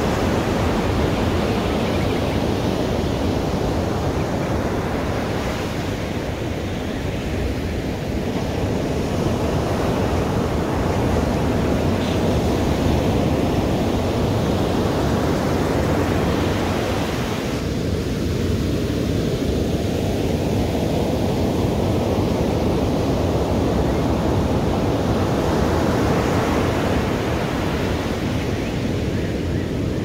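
Ocean surf: waves breaking and washing up a beach, a continuous rush that slowly swells and eases as each set rolls in.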